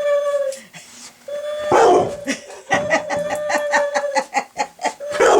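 A dog barking at the noise of a battery-powered owl figure: two loud barks, about two seconds in and again near the end, with a rapid patter of short sounds between them, over a steady held high tone that breaks off twice.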